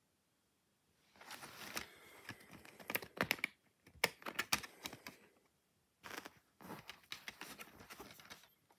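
Hands handling a clear plastic multi-disc DVD case, with clicks and rattles of the case and the discs as a disc is pressed on its centre hub. The noise starts about a second in and comes in two stretches with a short pause just after the middle.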